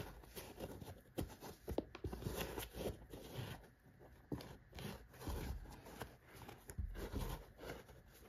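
Irregular rustling and scraping of a canvas skate shoe being handled by hand, as fingers pull at the tongue and press into the padded collar, with scattered small clicks.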